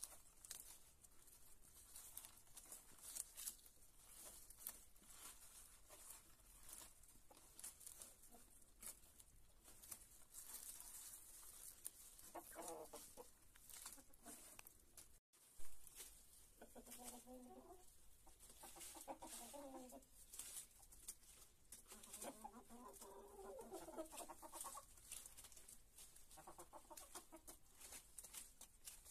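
Faint clucking from hens in several short groups of low calls, mostly in the second half, over many quick sharp clicks and rustles of beaks pecking and tearing at leafy greens. The sound drops out briefly just after halfway, followed by one sharp knock, the loudest moment.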